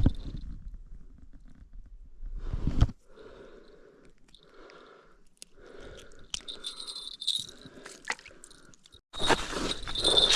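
A series of about seven soft, evenly spaced crunches, after a low rumble of handling noise. Near the end a louder jangling starts.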